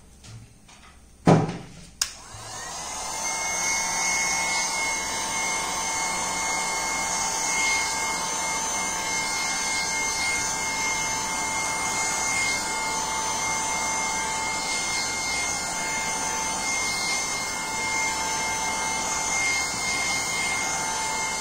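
Hot air gun switched on with a loud click about a second in, its motor whining up to speed and then blowing steadily, used to dry the paint on a paper-decoupaged plate.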